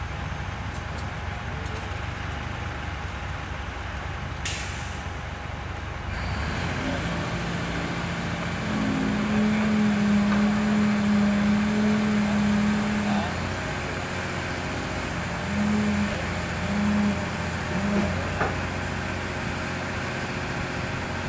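Diesel engine of a Caterpillar tracked excavator running, with one sharp knock about four seconds in. The engine note then rises into a steady hum for several seconds, followed by three short pulses, as the hydraulics work the boom holding a precast concrete panel on chains.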